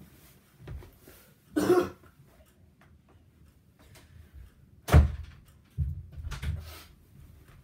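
Camera handling and footstep noises in a small room: a short noisy burst about one and a half seconds in, a sharp thump about five seconds in, then a few softer thuds as someone walks across a rug on a wooden floor.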